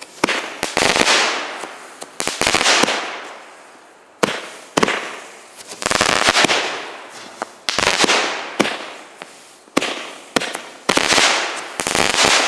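Consumer multi-shot firework cake firing shot after shot, a bang about every one to two seconds, each followed by a crackling hiss that fades away.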